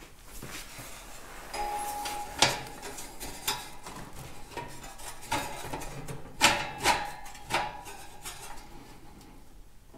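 Metal clinks and knocks as a steel tractor grille is shifted and wiggled on its lower mount to line up its slotted bolt holes. A short ringing tone comes just before the first of about six sharp clinks.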